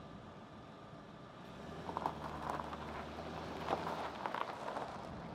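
Chevrolet Corvette's V8 engine pulling away at low speed, with tyres crunching over gravel. The engine hum comes up about a second and a half in and drops away about a second before the end.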